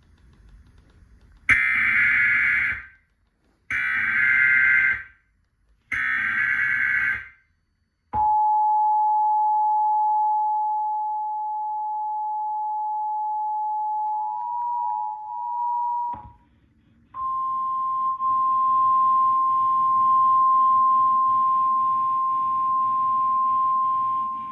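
Emergency Alert System tones: three roughly one-second bursts of the SAME digital header, then the two-tone 853/960 Hz EAS attention signal held about eight seconds. After a short gap comes a steady single 1050 Hz NOAA Weather Radio alert tone over a faint hiss.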